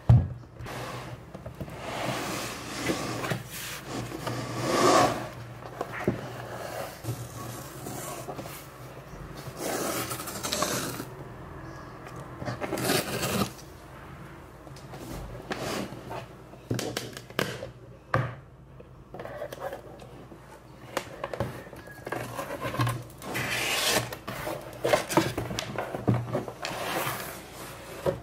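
Cardboard shipping box handled and opened by hand: irregular rubbing and scraping of cardboard, with a sharp knock at the start. Near the end, the boxed MacBook Pro slides out against the cardboard.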